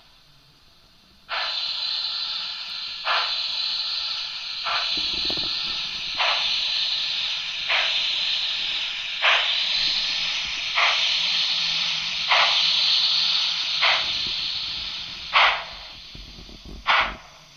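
The sound module of a Märklin 39243 HO-scale EST Class 13 steam locomotive model plays a steady steam hiss with slow, regular chuffs about every one and a half seconds, as the model sets off for a run. The hiss starts suddenly about a second in and thins out near the end, leaving a few sharper chuffs.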